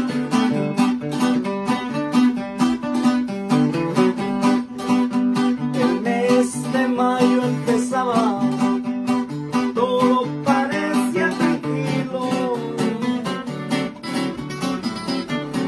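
Instrumental guitar introduction of a corrido: a plucked acoustic-guitar melody over a steady rhythmic accompaniment, before the singing begins.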